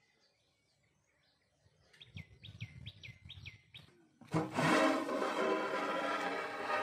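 A bird gives a quick run of about five falling chirps. Then, about four seconds in, a large metal pot lid is lifted off a cooking pot, scraping on the rim and ringing loudly for a couple of seconds.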